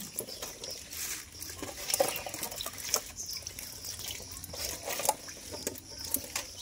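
Water splashing and trickling as a dense mass of young snakehead fish wriggle and thrash in shallow water, with scattered sharp little splashes and slaps.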